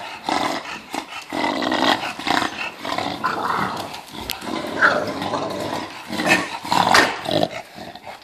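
Bulldogs growling in play, an adult English bulldog with bulldog puppies, in rough, irregular bouts with barely a pause. A short, high squeal comes about five seconds in.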